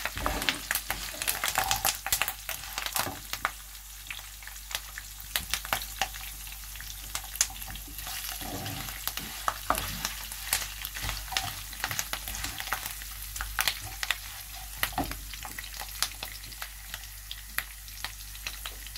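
Tempering of lentils, mustard seeds, curry leaves and chillies frying in hot oil in a nonstick pan: a steady sizzle with many sharp crackles and pops, and now and then the scrape of a wooden spatula stirring it.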